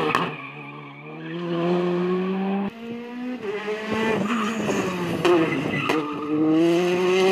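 Rally car engines at full throttle, the pitch climbing as each car accelerates through the gears, with a couple of sharp cracks. The sound breaks off abruptly a few times as one car gives way to the next.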